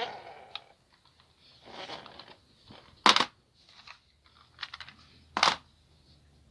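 Scattered handling noises: light rustles and clicks, with two sharp clacks, about three seconds and about five and a half seconds in.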